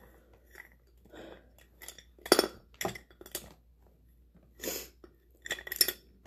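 Makeup containers clicking and knocking against each other as they are rummaged through and picked up: a string of short sharp clacks, the loudest about two and a half seconds in.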